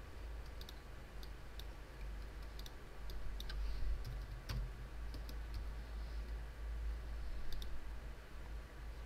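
Computer keyboard keys and mouse buttons clicking, scattered single and paired clicks with pauses between, over a low steady hum.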